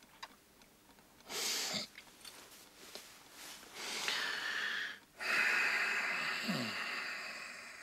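A man's heavy breathing: a sharp breath, then another, then a long drawn-out sigh through the nose that slowly fades, with a short low falling grunt in the middle of it.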